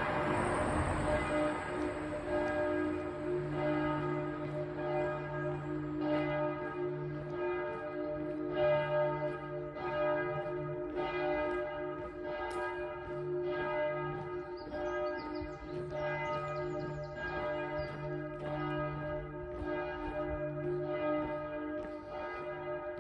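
Church bells ringing in a full peal. Several bells strike in an uneven, overlapping rhythm, a stroke roughly every half second to second, and their tones hum on between strokes.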